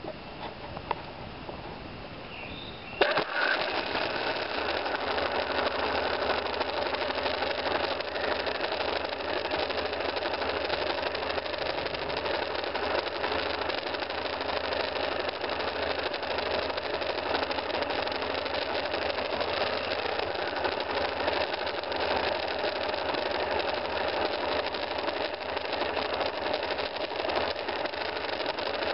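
Single-cylinder motorcycle engine starts suddenly about three seconds in, then idles steadily.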